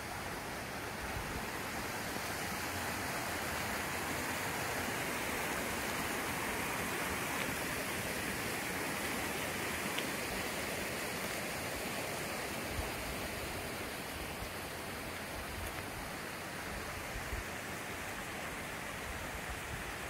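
Mountain stream running over rocks: a steady, even rush of water.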